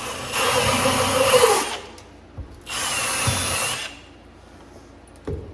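Power drill running in two bursts, about a second and a half and then about a second, the motor pitch dropping as each run stops; a short knock near the end.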